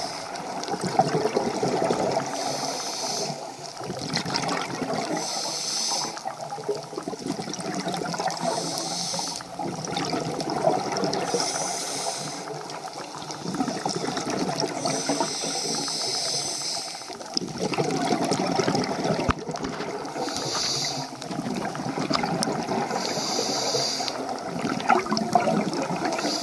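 Water noise around an underwater camera, with a short hissing breath through the swimmer's breathing gear about every three seconds.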